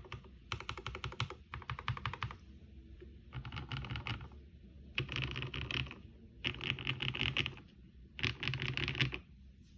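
Typing on a Kyuu mechanical keyboard with Black Cherry Pie linear switches (Cherry tops, Cream stems, black bottoms) in an aluminum plate: rapid clacks in quick runs, a long run at first and then four shorter bursts with brief pauses between them.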